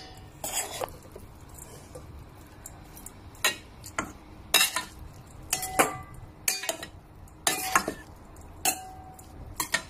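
Metal utensil stirring minced pork larb in a stainless steel mixing bowl, knocking against the bowl about once a second, each knock with a short metallic ring.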